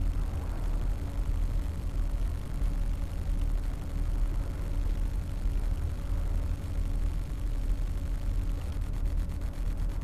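Wind buffeting the microphone on an open seafront, a steady rumble that rises and falls, with a faint steady hum underneath.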